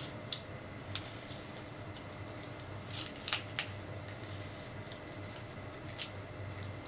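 Spoon scraping the flesh out of a halved orange, giving short wet squelching scrapes at irregular moments, several close together about three seconds in, over a low steady hum.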